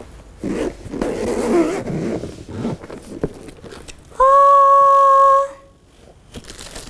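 Zipper on a padded gimbal carrying case being pulled open, with rustling as the lid is lifted. About four seconds in, a person's loud, steady held 'ooh' note lasts about a second and a half and is the loudest sound.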